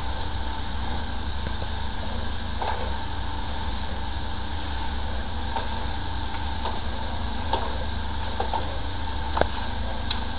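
High-pressure sewer jetter running steadily while its hose is fed into a drain pipe: a constant low rumble under a steady hiss, with a few faint knocks from the hose.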